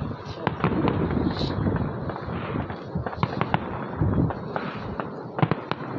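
Fireworks going off in the distance: a stream of sharp pops and crackles at irregular intervals, over a steady low rumble.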